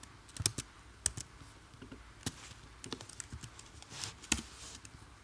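Computer keyboard typing: irregular key clicks, with the loudest keystroke a little after four seconds in.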